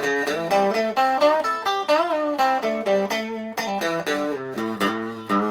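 Yamaha Pacifica electric guitar played through a fat-control boost pedal into a small Fender solid-state bass amp, picked up by a room mic: a single-note riff with a string bend about two seconds in.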